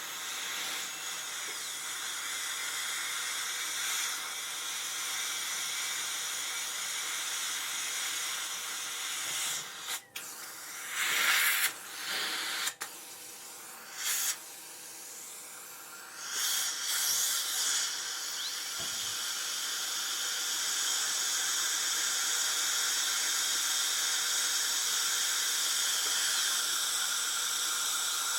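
Dentist's high-speed drill running with a high whine and hiss. About ten seconds in it stops and starts in several short bursts, then runs steadily again from about sixteen seconds.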